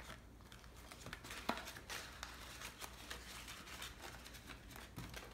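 Faint rustling and light taps of paper: banknotes and a paper envelope being folded and handled on a tabletop.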